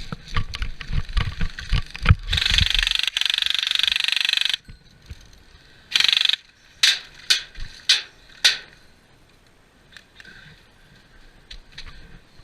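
Airsoft electric gun firing: a rapid full-auto burst of about two and a half seconds, a short burst, then four single shots. Thumps and clicks before the first burst.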